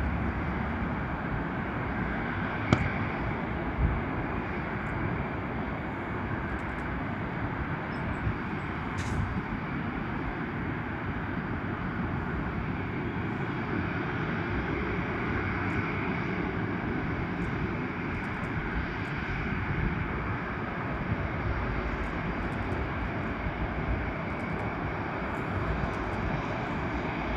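Boeing 747 taking off, its four jet engines at takeoff power giving a steady, even roar throughout. Two short sharp clicks come about three and four seconds in.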